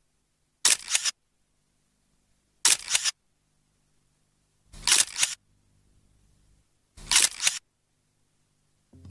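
Four camera shutter clicks about two seconds apart, each a quick double click.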